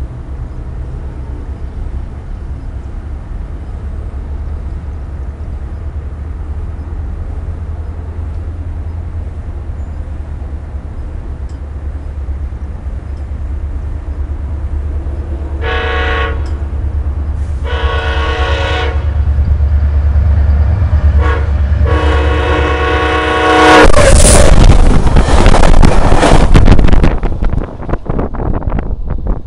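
SunRail commuter train approaching with a low, growing diesel rumble, then sounding its horn in the long–long–short–long grade-crossing pattern. Near the end it passes right over a camera lying between the rails, a very loud rush and clatter of wheels and engine that fades as the train pulls away.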